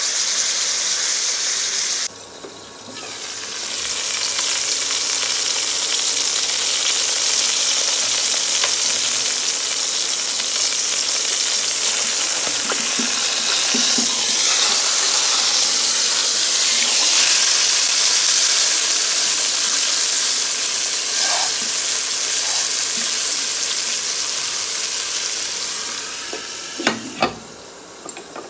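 Whole chicken sizzling steadily in hot ghee in a pot as it is browned and turned, with a brief drop-out about two seconds in. Near the end the sizzle dies down and a few sharp knocks come as a glass lid is set on the pot.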